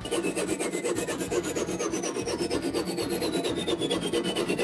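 Hacksaw cutting a piece of aluminium angle held in a bench vise, in quick rasping strokes, with a thin high ringing tone that falls steadily in pitch as the cut goes on.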